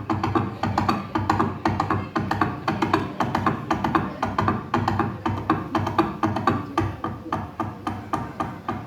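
Foley horse gallop: a person knocking out hoofbeats in a quick, uneven galloping rhythm of sharp hollow clops, performed to stand in for a horse running.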